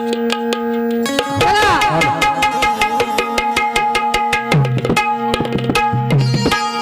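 Instrumental introduction on Indian hand drums, a quick rhythm of strokes over steady held notes, with deeper, pitch-bending bass strokes joining about two-thirds of the way through.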